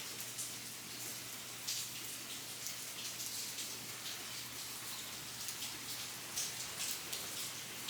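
Steady rain with individual drops ticking, a few louder drops scattered through.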